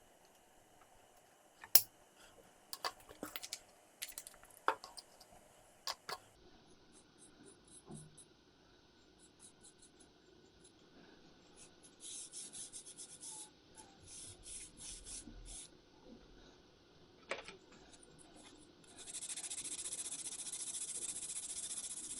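A few sharp clicks in the first seconds, then sandpaper rubbing over a UV-resin-coated 3D-printed plastic ammo crate: short strokes in bursts from about halfway, turning into steady continuous rubbing near the end.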